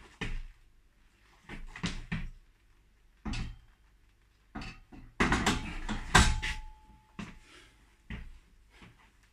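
Short, forceful breaths during barbell squats, then a loaded barbell clanks onto the metal rack hooks about six seconds in, leaving a brief ringing tone.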